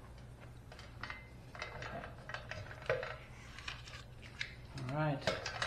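Small metallic clicks and scrapes of a steel cotter pin being worked through the clevis pin of a motorcycle forward control by hand. About five seconds in comes a brief wordless hum of a man's voice, the loudest sound.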